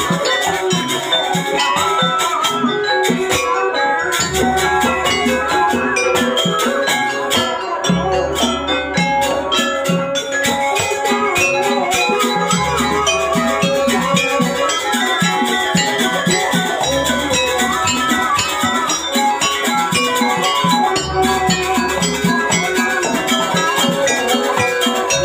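Live jaranan music from a Javanese gamelan-style ensemble: tuned metal percussion and drums playing a dense pattern, with a deep low note sounding about every four seconds.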